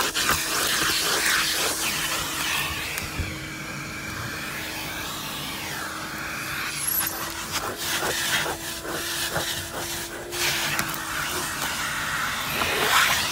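Vacuum cleaner running steadily with a hum while its hose nozzle is worked over car floor carpet, with scattered knocks as the nozzle moves about.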